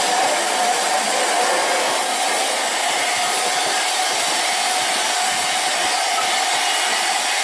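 Steady, even hiss of steam from the 1867 Festiniog Railway tank locomotive Welsh Pony, with no wheel clicks or beats.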